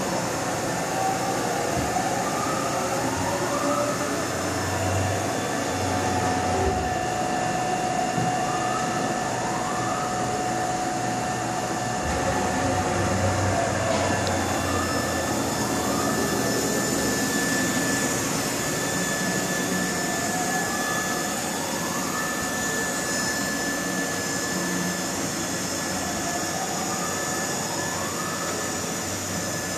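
Haas VF6 vertical machining centre running through a cycle. Over a steady hum, rising whines come every few seconds as the axis drives speed up and move the table.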